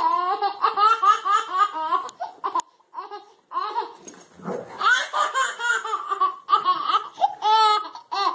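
A baby laughing hard in quick, repeated bursts of giggles, with a short pause a little under halfway through before the laughter picks up again.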